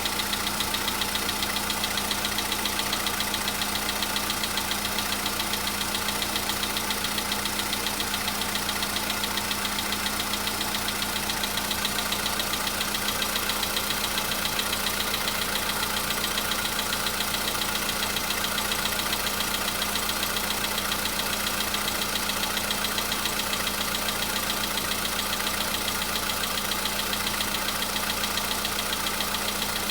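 Volkswagen Polo Sedan's 1.6-litre CFNA four-cylinder petrol engine idling after a cold start, with a light, rapid, even tapping over the steady running. The tapping is the cold-start knock the owner puts down to the hydraulic lifters; it is still there a day after an oil change and engine flush, but lighter than before.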